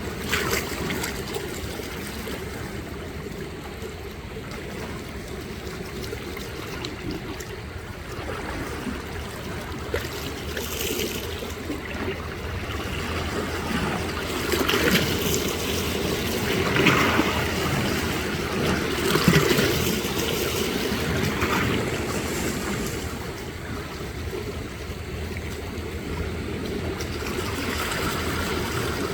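Small sea waves lapping and trickling at the water's edge, with a few louder washes about halfway through.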